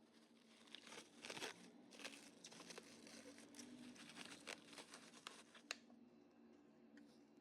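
Faint crinkling and rustling with many small crackles, as of material being crumpled or torn by hand, from about a second in until near six seconds.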